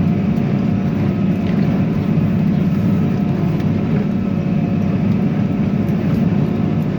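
Tractor engine running at a steady speed: an even, unbroken low drone.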